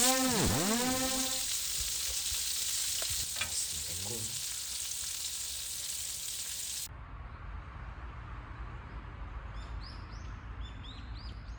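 Food sizzling and crackling as it fries in hot oil. About seven seconds in, it cuts off abruptly to quieter outdoor ambience with a low hum and a few short bird chirps.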